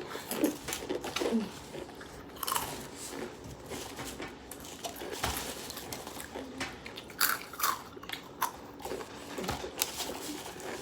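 People rapidly crunching and chewing Takis rolled tortilla chips and hot popcorn, with many irregular crisp crunches.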